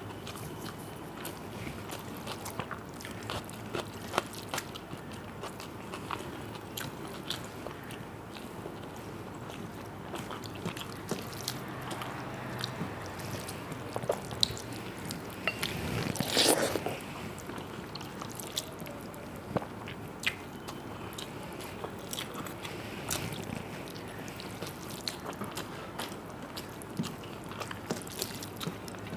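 A person eating close to the microphone, chewing panta bhat (water-soaked rice) with fried vegetables and fish: a steady run of small crunches, clicks and wet mouth sounds, with one louder crunch lasting about a second just past halfway.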